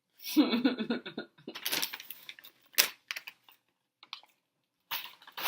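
A short hum or laugh near the start, then scattered clicks and rustling, with one sharp click midway, as fries and their paper packaging are handled.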